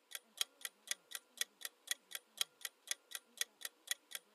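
Quiz countdown-timer sound effect ticking steadily, about four sharp ticks a second.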